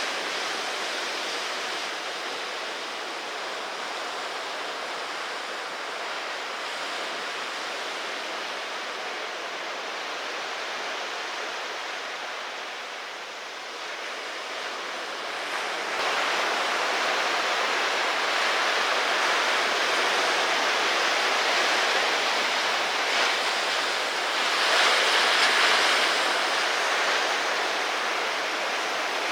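Ocean surf and rushing water, a steady noise that steps up suddenly about halfway through and swells briefly near the end.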